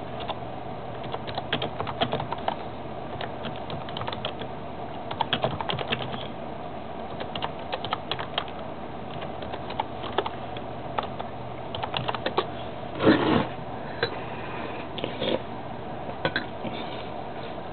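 Close-up breakfast eating noises: many small irregular clicks and crackles over a steady low hum, with a louder short noise about 13 seconds in.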